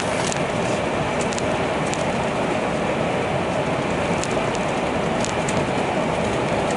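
Steady running noise inside a moving vehicle, with light ticks and rattles now and then.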